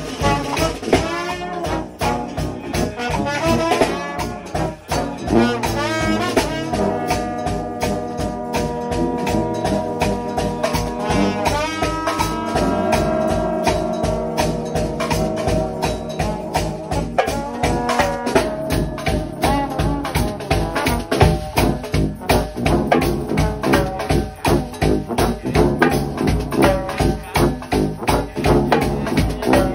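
Gospel shout band of trombones and trumpets playing over a fast, even beat on bass drum and drum kit. The horns hold long chords through the middle, then shorter horn phrases and heavier drumming take over.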